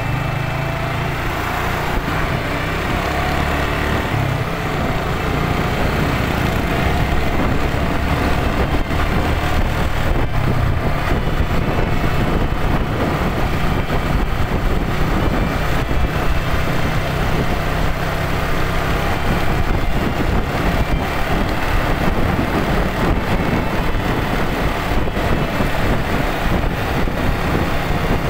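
Motorcycle being ridden at steady speed on an open road: engine running with a constant drone, mixed with road noise and wind on the microphone.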